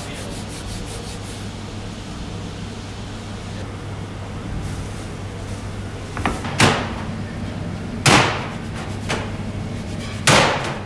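Floured dough slapped down on a wooden worktable: three loud thumps in the second half, over a steady low hum.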